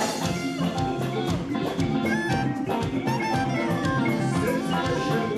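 Band music with horns and a drum kit, held brass notes over a steady beat.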